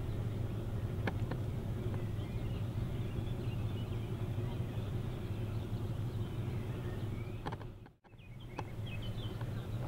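Outdoor ambience: a steady low hum with birds chirping now and then. It drops out briefly at a cut about eight seconds in.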